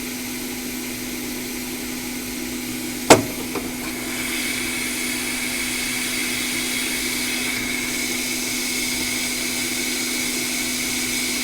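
Hot air rework station blowing steadily over a fluxed logic board, with a sharp click about three seconds in, after which the airflow grows louder and carries a steady high whistle.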